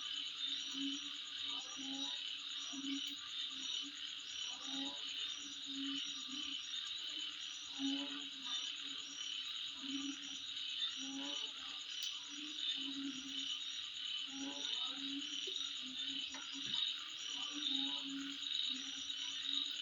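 Night chorus of insects, a continuous high trilling with fast regular chirps above it, while frogs call in short low notes repeated about once or twice a second.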